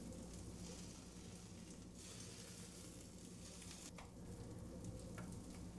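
Butter-brushed hamburger buns sizzling faintly as they toast cut side down in a frying pan, with two light clicks near the end.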